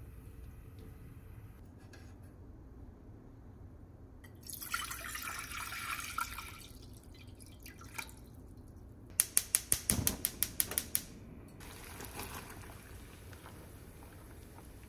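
Water pouring into a pot for about two seconds, then a quick run of about ten sharp clicks from a gas stove's igniter lighting the burner.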